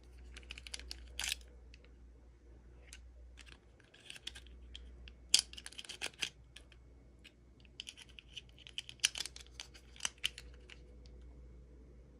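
Plastic toy packaging being handled and opened: several short bursts of crinkling, crackling and clicking.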